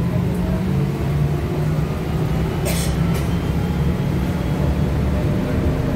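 Interior ride noise of a Trolza-5265.00 Megapolis trolleybus under way: a steady low rumble with an even electric hum. Two short hisses come about halfway through.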